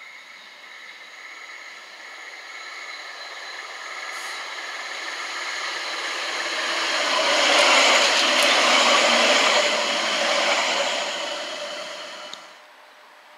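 Sheffield Supertram tram approaching and passing on its rails, its running noise growing steadily louder to a peak about eight seconds in, then fading and cutting off sharply near the end.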